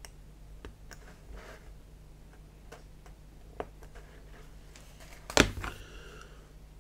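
Scattered light clicks and taps of a hobby knife blade cutting photo-etched brass parts free from the fret on a cutting mat. One much louder sharp click about five and a half seconds in, with a brief ring after it.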